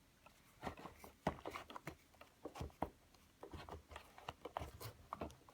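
Soft, irregular clicks, taps and rustles of a small wallet being handled.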